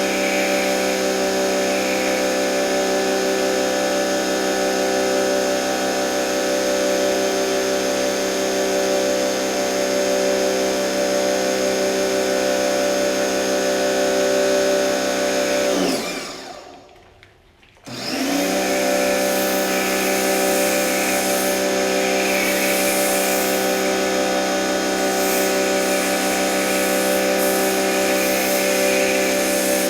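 Sun Joe SPX3001 electric pressure washer's motor and pump running with a steady whine and a hiss of spray. About halfway through, the motor winds down to a stop, stays off for under two seconds, then spins back up and runs on. This is the safety shut-off stopping the motor when the trigger is let go.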